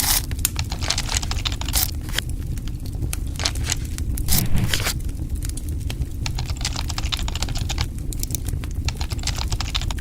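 Guava roasting over an open flame, its skin crackling and popping irregularly over a steady low rumble.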